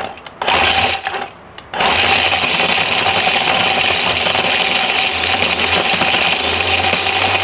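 Mighty Mill ore crusher driven by a Ryobi cordless angle grinder, run with an overloaded charge of RJ45 connectors. It runs in a short burst, cuts out for about half a second, then runs steadily with the plastic and rubber chunks grinding inside. The cutting out comes from the cordless grinder's current limiting under too heavy a load.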